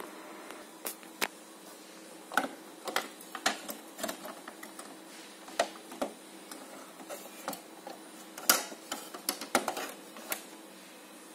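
Irregular plastic clicks and knocks from the HP Designjet 130's printhead carriage cover and its latch being handled and lifted open, with the loudest cluster of clicks a little past halfway. A faint steady hum runs underneath.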